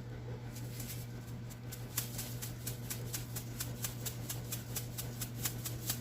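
Pink Himalayan salt being dispensed into the stock pot: a rapid run of sharp, crunchy clicks, about five a second, over a steady low hum.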